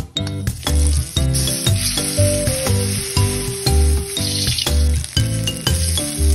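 Ground chilli-shallot spice paste and aromatic leaves sizzling in hot oil in a wok while a metal spatula stirs them. A steady frying hiss runs under background music with a regular beat.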